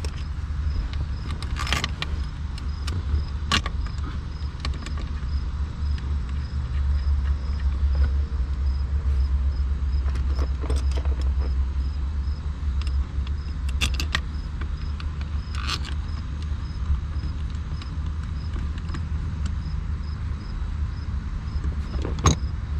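Scattered clicks and clinks of tools and shifter parts being handled as an aftermarket short-throw shifter is fitted, over a steady low hum.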